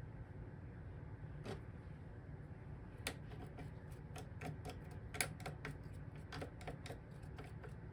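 Light, irregular clicks and taps of a small lint brush working over the metal underside of a Juki sewing machine with its bottom plate removed, a single click about a second and a half in, then several a second from about three seconds in.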